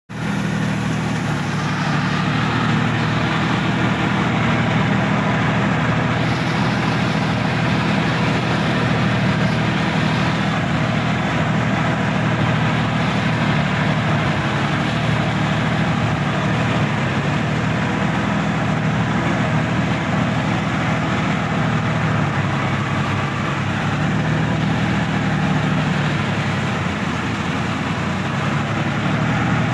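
Diesel engine of a Sonalika DI-50 RX tractor running steadily as the tractor drives through a flooded, muddy rice paddy, heard close from the driver's seat.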